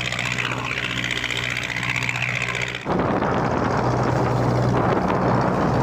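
Small wooden cargo boat's inboard diesel engine, a Mitsubishi 4D31, running at a steady hum while under way, mixed with water rushing and splashing as the loaded bow drives through choppy waves. About three seconds in the sound cuts abruptly to a louder, noisier mix of spray and engine.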